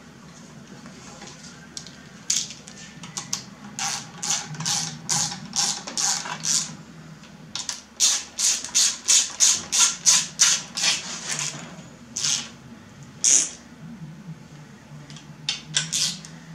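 Hand ratchet clicking in runs of quick strokes as a small bolt is run down on an engine, about two to three strokes a second, over a steady low hum.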